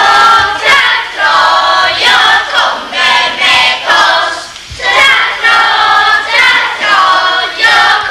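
A group of children singing together in chorus, phrase after phrase, with a short break a little before halfway.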